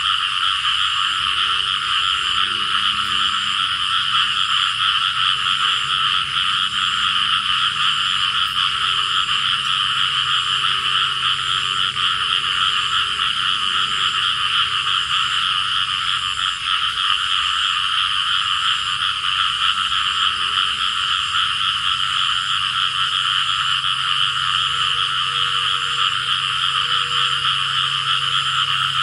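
Dense, steady night chorus of many frogs calling together, with fainter low calls underneath.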